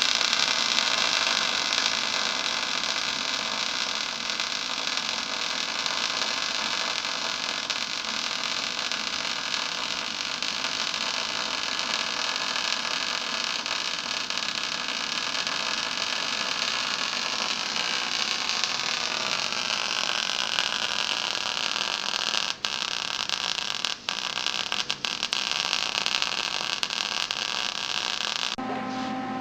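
Electric arc welding: the arc's steady crackling hiss as a bead is run, nice and even, which the instructor takes as a sign of good machine settings and travel speed. It drops out for an instant a few times near the end and stops shortly before the end.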